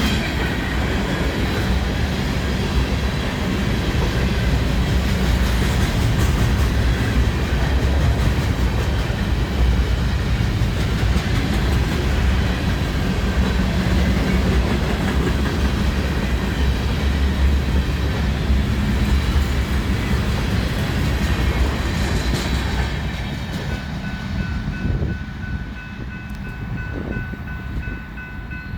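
BNSF freight train rolling past: a steady low rumble of wheels on rail with the clickety-clack of the cars, dying away over the last few seconds.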